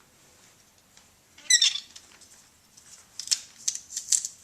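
Garlic crusher crushing garlic cloves: a short squeak about a second and a half in, then a string of short, crisp clicks and crunches through the last second and a half.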